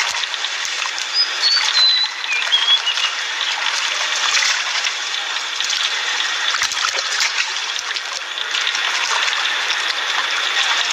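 Water splashing and sloshing as two monkeys scuffle in a shallow pond and one climbs out onto the edge, over a steady hiss, with a few high chirps in the first few seconds.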